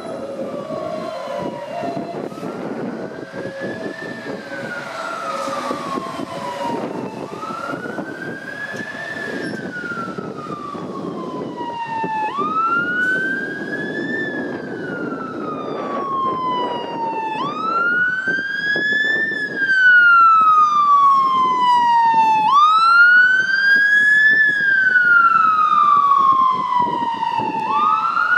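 Ambulance siren on a slow wail: each cycle rises quickly, then falls slowly, about every five seconds. It grows louder as the Mercedes Sprinter ambulance approaches through traffic, and is loudest from about two-thirds of the way in. Traffic rumbles beneath it.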